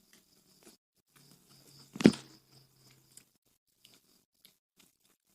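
Chewing and biting into crispy Indonesian fried snacks (gorengan), with scattered small crunches and one loud bite about two seconds in.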